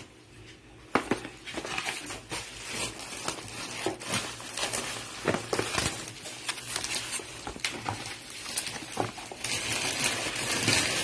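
Packaging being handled: rustling and crinkling of plastic wrap and cardboard boxes, with scattered light taps and clicks. The crinkling grows louder and denser near the end.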